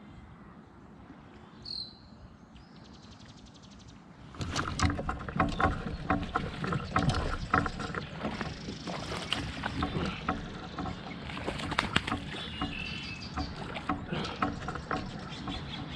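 A hooked largemouth bass being fought through matted weeds beside a kayak. About four seconds in, splashing, thrashing and rustling of the vegetation start suddenly, with a rapid run of clicks and rattles from the tackle, and go on to the end.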